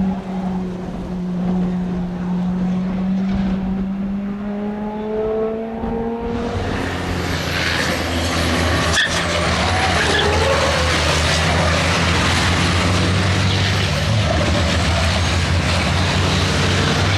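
Racing vehicle engines running on a circuit. For the first six seconds one engine holds a steady note while fainter engine notes rise in pitch. About six seconds in, a louder, deeper engine with heavy mechanical noise takes over and runs steadily to the end.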